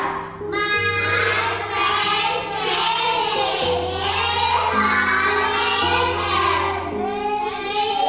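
Background music: a song with high singing voices over sustained bass notes.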